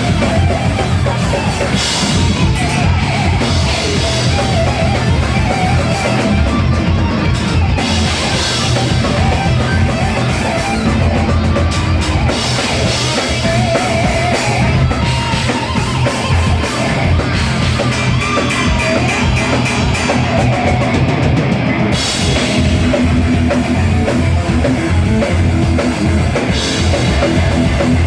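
Live heavy metal band playing loudly: pounding drum kit and guitars, continuous and dense.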